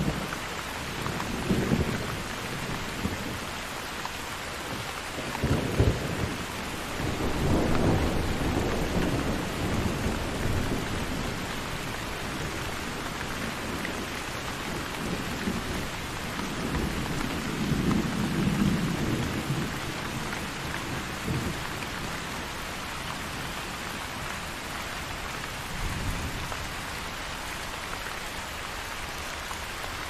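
Thunderstorm: steady rain falling, with several rolls of thunder rumbling over it, a sharper clap about six seconds in and longer rumbles around eight and eighteen seconds in.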